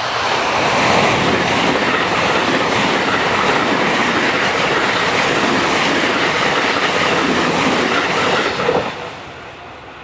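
A JR West commuter electric train on the Kyoto Line passes a level crossing at close range. It makes a loud, steady rush of wheel and rail noise with clattering over the rail joints, then fades away near the end.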